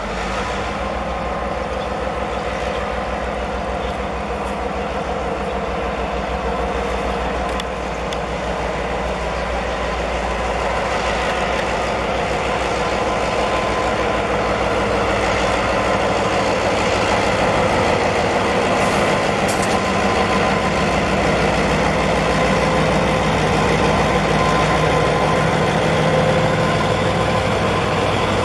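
Taiwan Railway diesel locomotive hauling a freight train of open gondola wagons, its engine running as it approaches and growing steadily louder as it passes close by. Near the end the wagons roll past.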